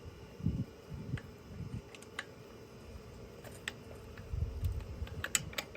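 Hand wrenches clicking against the strut's top nut and piston shaft as they are fitted and repositioned, in scattered sharp metallic clicks that come more often in the second half, with a few dull knocks from handling the strut.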